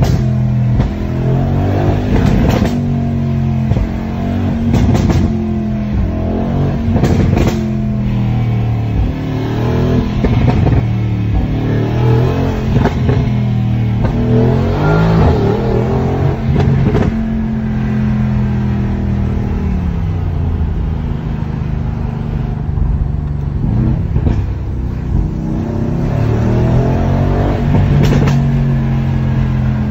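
Mercedes-AMG GLC 63 S Coupe's twin-turbo 4.0-litre V8, heard from inside the cabin, revving up and falling back again and again through the gears. Its stock exhaust gives repeated sharp pops and crackles as the revs drop.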